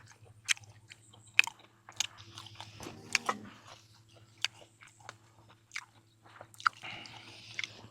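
Close-miked mukbang chewing and biting of raw-beef koi with sticky rice and fresh vegetables: irregular sharp crunches and wet mouth clicks. A short hum from the eater about three seconds in.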